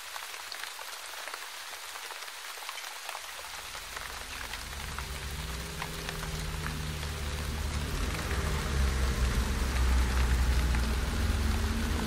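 Steady rain pattering, with scattered individual drops. From about three seconds in, a low held drone swells beneath it and grows louder.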